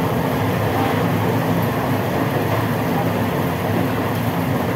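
Steady, even roar of running kitchen equipment, with no separate knocks or clatter.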